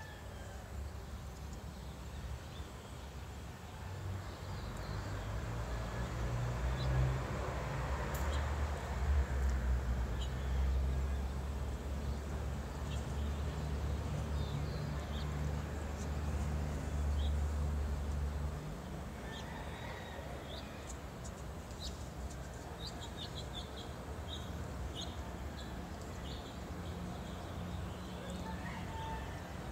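Birds chirping with scattered short, high calls, busier in the second half, over a low rumble that builds in the first half and cuts off suddenly about two-thirds of the way through.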